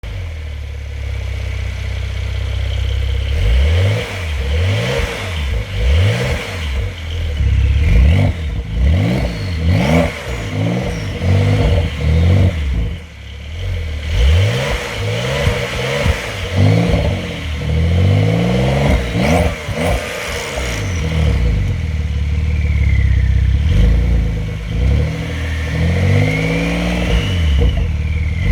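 2020 Porsche 911 flat-six engine being revved repeatedly through its exhaust. It holds a steady note for the first few seconds, then gives a long run of quick blips whose pitch climbs and drops, with a few longer revs.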